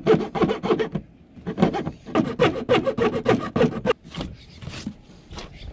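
Hand file rasping back and forth on the edge of a hole-saw cut in a plastic boat hull, about five strokes a second, filing the hole out so a flush rod holder will fit. The strokes come in two runs with a short pause about a second in, and stop about four seconds in, leaving a few scattered rubs and knocks.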